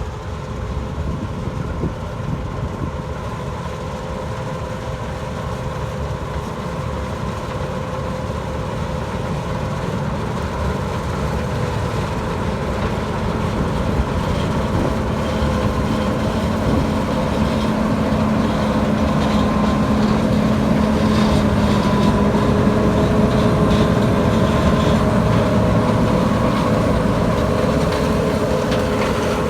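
John Deere 9400 combine running steadily with a 216 bean head, a continuous machine hum that grows gradually louder.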